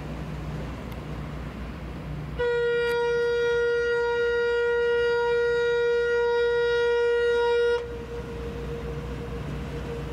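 Training ship Yuge Maru's whistle sounding one long blast of about five seconds, a single steady pitch that starts about two and a half seconds in and cuts off cleanly, given as a salute to onlookers on shore.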